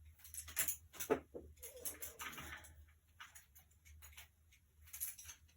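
Paintbrushes being sorted through by hand: irregular light clicks and clatter with some rustling as one is picked out.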